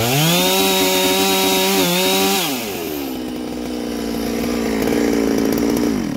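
Neo-tec NS892 chainsaw, a 92cc two-stroke MS660 clone with a cannon muffler, revved sharply up to full throttle at the start and held there for about two and a half seconds, then dropping back to a lower steady speed before falling away near the end.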